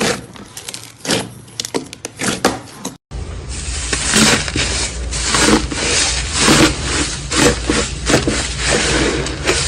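Slime being squeezed and pressed by hand, crackling and crunching. It cuts about three seconds in to a second clip, where squishy, crunchy presses come about twice a second over a low hum.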